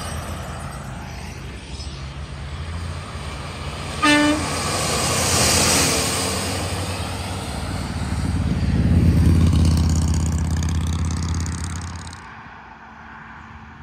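Semi-trucks passing close by on the highway. A dry-van trailer's tyres and engine fade away, a short air-horn toot sounds about four seconds in, and then a tanker truck's diesel engine and tyres build to a deep drone that is loudest around nine to ten seconds and drops off sharply near the end.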